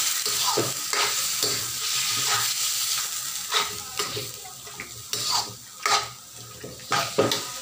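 Raw pork pieces sizzling in hot oil in a wok while a slotted metal spatula stirs and scrapes them against the pan. Several sharper, louder scrapes of metal on the wok come in the second half.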